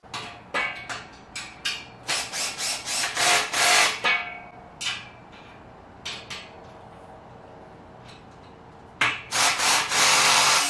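Irregular scraping and rubbing noises in short bursts, strongest in the first four seconds and again in the last two, with a quieter, steadier stretch between.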